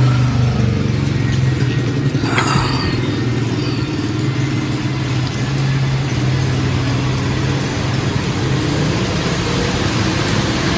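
Motor vehicle driving along: a steady low engine drone with road noise, and a brief noisy swish about two seconds in.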